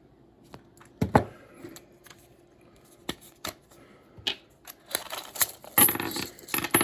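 Silver coins and their rolls being handled: a few scattered clicks and taps, one sharper knock about a second in, then a denser clatter of coins near the end.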